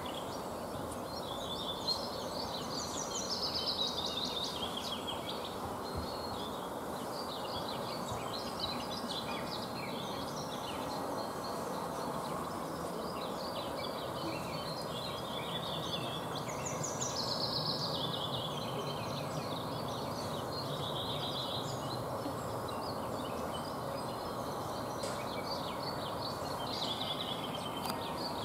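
Several songbirds singing phrases and trills again and again over a steady background hiss.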